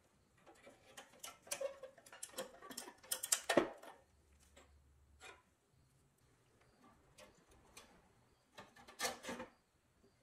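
Small clicks, scrapes and metal clinks as a tool and gloved hands work at the rusty pressed-steel ladder pivot of a 1960s Buddy L toy fire truck. The noises come thickest in the first few seconds, with the loudest clink about three and a half seconds in, then another short cluster near the end.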